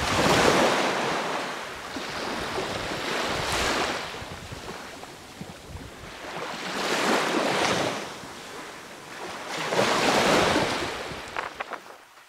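Sea waves washing in slow swells, each one rising and fading over a second or two, about every three seconds. A few sharp clicks come near the end.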